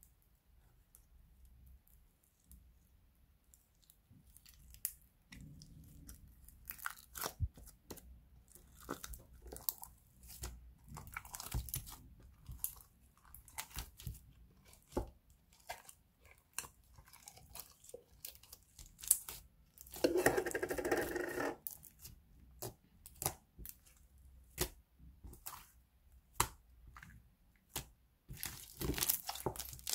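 Clear glitter slime being poked and stretched by hand: sticky crackling, clicking and tearing sounds. The first few seconds are quiet, and there is a louder squelching stretch about two-thirds of the way through.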